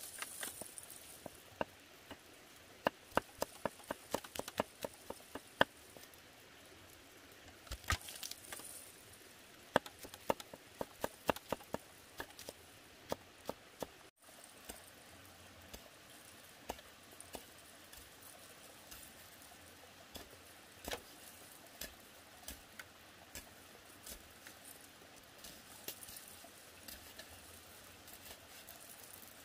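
Kitchen knife chopping garlic and red chili on a wooden cutting board: quick runs of sharp knocks, about three a second, then lighter, more scattered taps in the second half.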